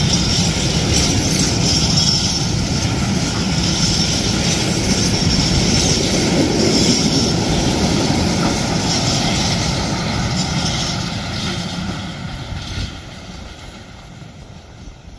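Freight train of empty flat wagons rolling past: steady rumble and clatter of the wheels on the rails, fading away over the last few seconds as the end of the train draws off.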